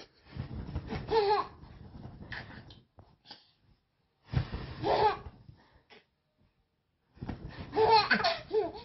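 Baby laughing in three bouts of giggles and high squeals, each a second or two long with short pauses between.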